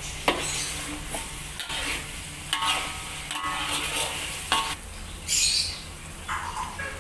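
Steel spatula stirring and scraping thick rendang spice paste around a metal wok, with sharp clinks and scrapes against the pan about once a second over the sizzle of the paste frying.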